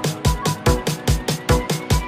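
Electronic dance background music with a fast, heavy beat, about four thumps a second, and a rising synth tone that starts about a second in.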